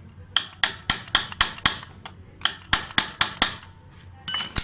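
Hammer striking the end of a Honda Activa scooter's rusted front axle bolt: two quick runs of metal-on-metal taps, six and then five, at about four a second, to break the rust so the bolt comes out. A short ringing metallic clink near the end.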